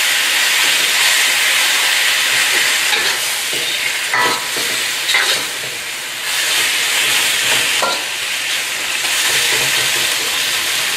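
Chicken and vegetable stir-fry sizzling steadily in a hot wok, stirred and tossed with a metal wok spatula that scrapes and clinks against the pan a few times.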